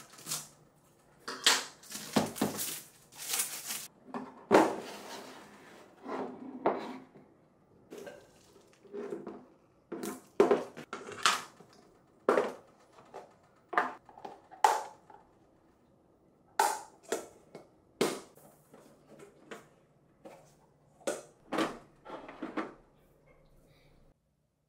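IKEA GLIS plastic storage boxes and lids being handled and stacked on a table: an irregular string of sharp plastic clicks and knocks with short scrapes, stopping shortly before the end.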